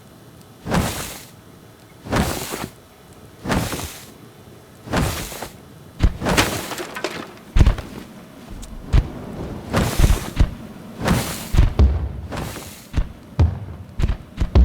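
Fireworks going off: a series of loud bangs with short crackling tails, first about one every second and a half, then coming faster and overlapping from about halfway through.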